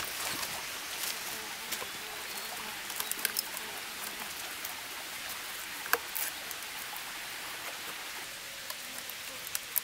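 Banana stems being handled and their sheaths peeled apart by hand: scattered crackles and snaps of wet plant fibre, with one sharp snap about six seconds in, over a steady rain-like hiss.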